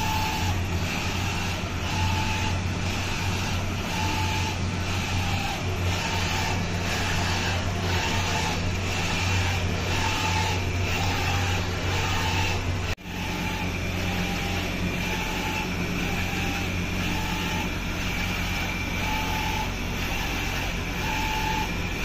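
Flatbed UV printer running: a steady motor and fan hum with the rhythmic whirr of the print carriage shuttling back and forth, and a short high tone recurring every second or two. About halfway through the sound cuts out for an instant and resumes as a steadier hum with the same recurring tone.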